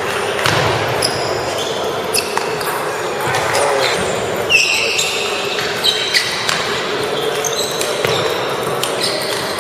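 Table tennis balls clicking sharply and irregularly off paddles and tables, several at once from more than one table, some with a brief ringing ping, over a background of chatter.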